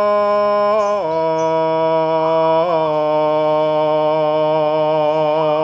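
Male voice singing a Javanese kidung in a slow chant, holding one long note that steps down to a lower pitch about a second in and is then held steady.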